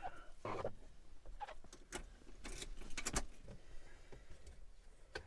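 Scattered sharp clicks and knocks with some rustling, the loudest cluster about three seconds in and a last click near the end.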